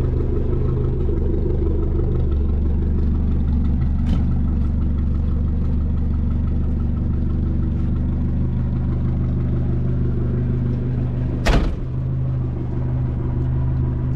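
Suzuki truck's carburetted engine idling steadily with a low, even rumble. A single sharp thump about eleven and a half seconds in.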